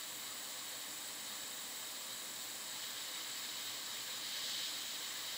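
Hot air rework station blowing a steady hiss of hot air over a newly placed LED driver chip on a logic board, heating its solder to reflow the chip; the hiss swells slightly about four seconds in.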